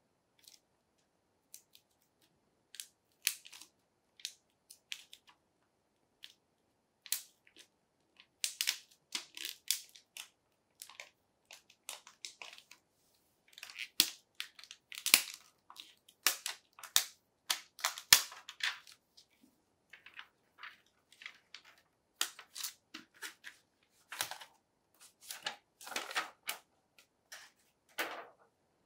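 Plastic shrink-wrap being picked at and peeled off a small cardboard box by hand, crackling and crinkling in irregular bursts that grow busier in the second half.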